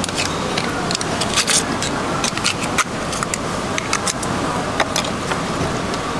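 Fish-market background din with frequent small sharp clicks and clinks scattered through it.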